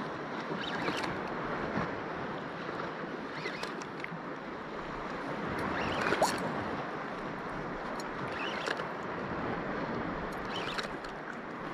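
Shallow sea water washing and lapping, with a steady rushing noise, broken by a few short clicks and rustles; the sharpest click comes about halfway through.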